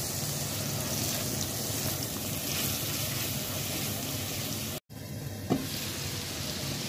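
Tomato, onion and pepper sauce frying in a clay tajine with a steady sizzle while it is stirred with a silicone spatula, the sauce frying down so the tomatoes' water cooks off. The sound cuts out for an instant nearly five seconds in, then the sizzle carries on.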